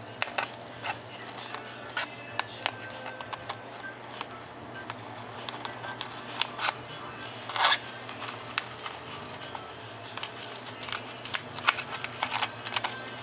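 Hobby knife blade cutting through foam sheet, a run of irregular small crackles and clicks as the blade is drawn along the marked lines.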